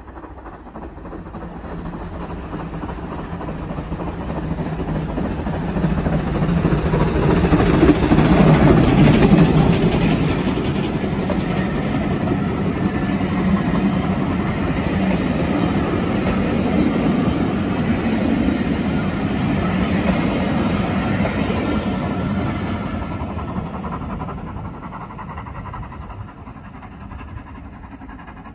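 A GWR steam locomotive hauling a train of coaches passes close by. It builds as it approaches and is loudest as the engine goes by about eight seconds in. The coaches' wheels then rumble along the track as the train draws away and fades.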